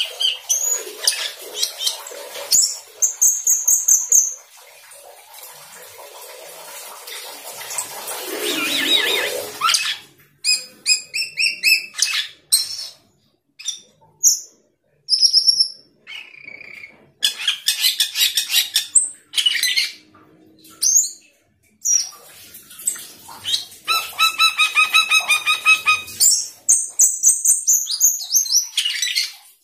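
Asian glossy starling singing a long, varied song of sharp chirps, high whistles and rapid trilled runs, broken by short pauses, with a scratchy, noisier passage about a third of the way in.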